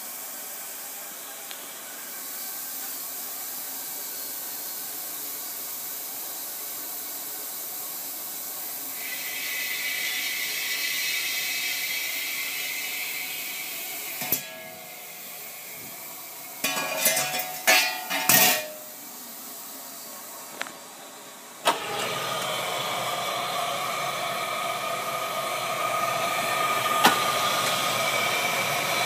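Commercial two-compartment countertop steamer hissing steadily as it runs, the hiss growing louder partway through. It breaks off with a click near the middle, a few loud knocks and clatters follow, and then a steady hiss with a faint hum starts up again.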